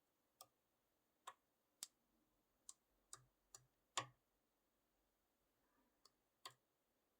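Lock pick working the pins of a Clark-Anxter Platinum 6-pin pin-tumbler lock, heard as about nine faint, irregular clicks over near silence, the loudest about four seconds in.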